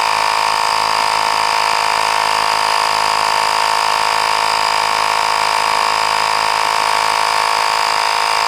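Miniature 12-volt portable tire air compressor running steadily as it pumps up a truck tire, a constant hum made of several steady tones.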